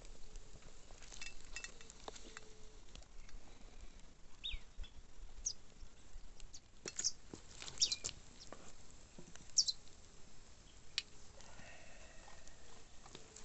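Birds giving several short, high chirps that fall in pitch, the loudest a little past the middle, over quiet outdoor ambience with faint scattered crackles.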